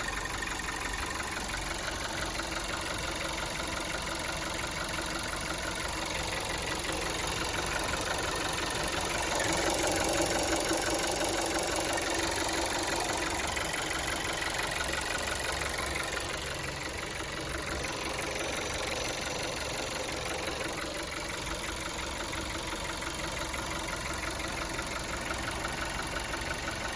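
Volkswagen Golf 7 turbocharged TSI petrol engine running at idle with a knock from the engine, the fault the owner is recording. It runs steadily, a little louder for a couple of seconds about a third of the way in.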